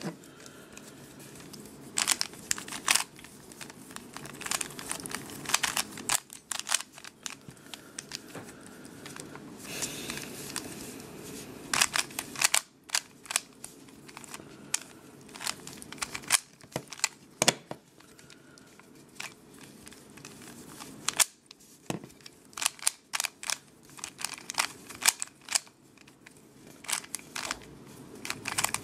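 Stickerless Rubik's Cube being turned by hand during a solve: irregular runs of quick plastic clicks and clacks as the layers snap round, broken by short pauses.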